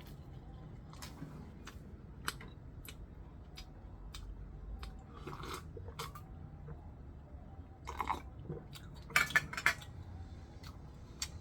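A person eating at a table: chewing, with scattered small clicks and clinks of cutlery against a dish, and a few louder taps about nine seconds in.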